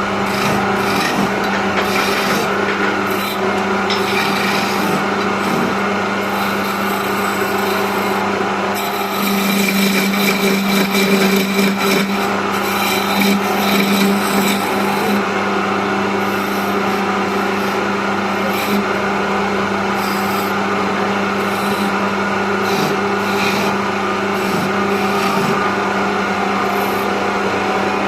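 Wood lathe running with a steady motor hum while a turning tool cuts a spinning wooden blank, a continuous rough scraping and rasping of wood. The cutting grows louder for several seconds about a third of the way through.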